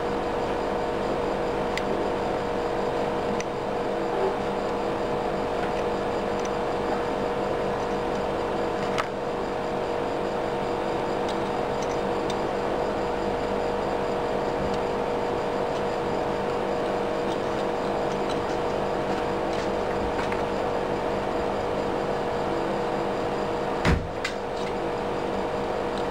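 Steady mechanical hum with two steady tones throughout, with a few light clicks from small metal valve parts being handled and one louder knock near the end.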